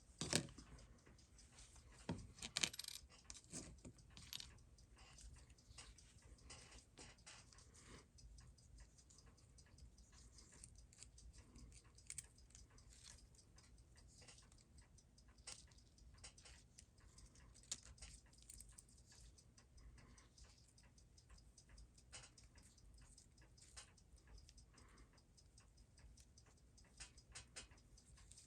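Near silence with faint, irregular small metallic clicks and taps from hand tools and tiny watch parts being handled, a little busier a few seconds in, as the mainspring is worked out of its barrel.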